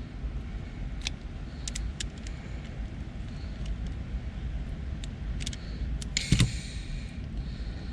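Wire strippers clicking and snipping as insulation is stripped back from a thin electrical wire, with a louder clatter of handling about six seconds in, over a steady low rumble.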